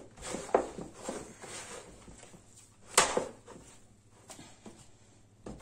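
Soft yeast dough being kneaded by hand in a plastic bowl: squishing and rustling with scattered knocks, the loudest about three seconds in.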